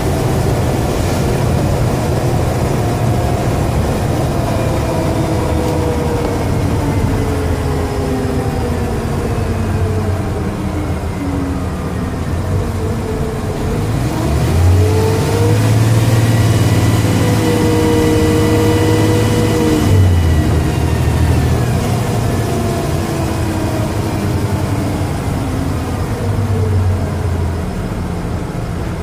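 Dennis Trident double-decker bus with a Voith automatic gearbox under way, its engine drone sinking and rising with speed. About halfway through, a whine climbs, holds for a few seconds and falls away; it is the loudest part, and the uploader puts it down to a bad turbocharger.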